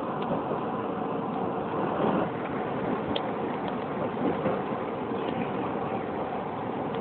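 Keisei 3700-series electric train running at speed, heard from just behind the driver's cab: a steady rumble of wheels on rail with a faint steady hum, scattered small clicks, and a couple of louder knocks about two and four seconds in.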